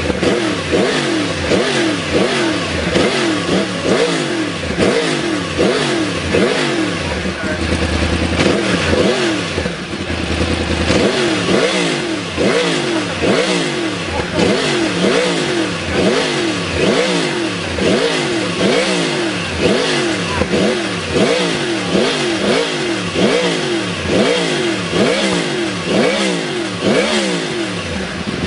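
Yamaha YZF-R1 inline-four through a Yoshimura exhaust, revved again and again, its pitch rising and falling about one and a half times a second.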